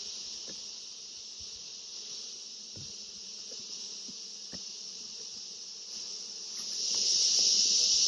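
Steady, high-pitched drone of an insect chorus, swelling louder about seven seconds in. A few faint knocks of a hive box being handled and set in place.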